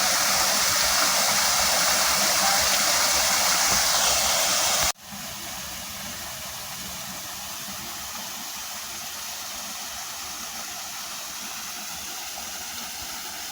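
Steady rush of water from a waterfall. About five seconds in it cuts suddenly to a quieter, steady rush of water.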